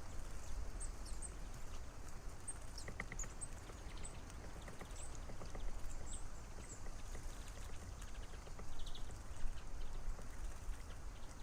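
Tits calling with scattered short, high, thin notes, with light taps and splashes as they bathe in a bird bath. A low steady rumble runs underneath.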